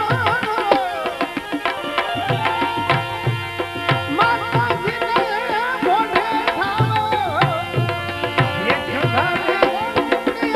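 Instrumental interlude of a Gujarati bhajan: tabla keeping a steady beat under a wavering, sliding melody line, with no singing.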